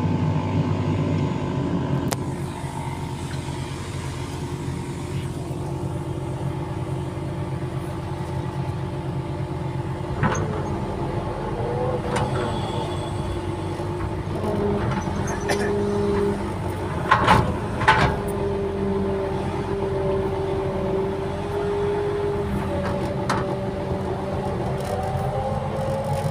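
Heavy earthmoving machine running steadily under work. Partway through, an extra steady tone comes and goes over the engine, and a couple of sharp knocks stand out a little past the middle.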